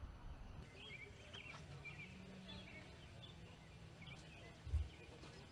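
Faint bird chirps, short and scattered, over quiet outdoor background noise, with one brief low thump near the end.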